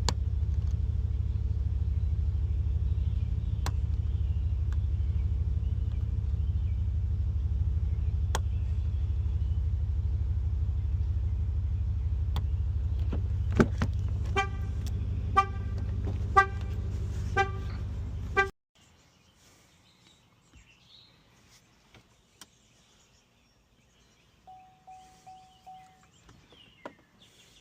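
A car horn sounding in a regular pulse, about once a second, five times, in the way a car alarm sounds when it is set off. It plays over a steady low rumble, and both cut off suddenly. After that it is nearly quiet, with a short single beep and a few faint clicks.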